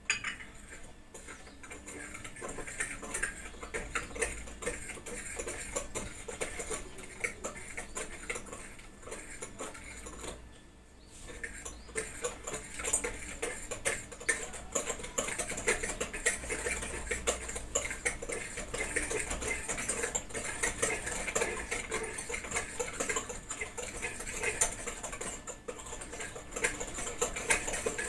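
Electric hand mixer running in a bowl of wet cake-batter ingredients, its beaters ticking and rattling rapidly against the bowl. The sound drops briefly about ten seconds in, then carries on.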